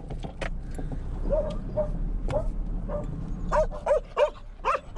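Dog barking in a string of short, high yaps at the car from just outside it, heard from inside the cabin.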